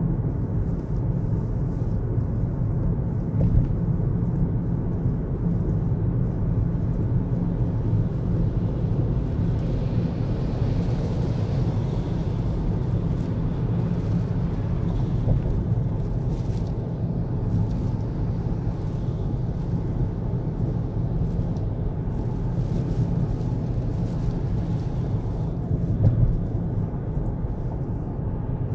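Car travelling at speed on an expressway: a steady low rumble of tyres on the road and engine, with a few brief thumps.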